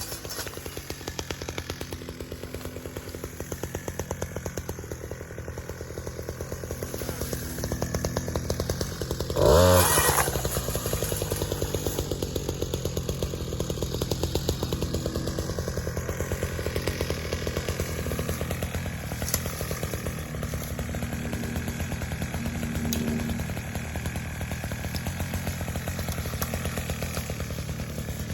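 Gas string trimmer running at working speed while cutting brush, with one brief loud burst of revving that rises and falls in pitch about ten seconds in.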